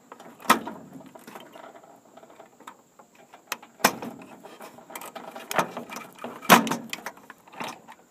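Plastic wire-harness connectors being unplugged from a microwave's touch-control circuit board, with handling of the board: a series of clicks and knocks, three of them sharp and loud, about half a second, four and six and a half seconds in.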